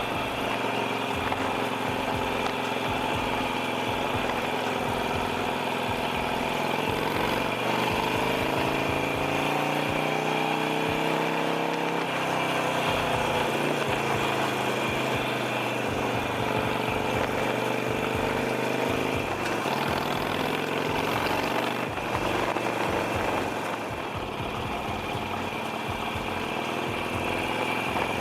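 Harley-Davidson Sportster's V-twin engine under way, its note rising and falling several times as the bike speeds up and eases off.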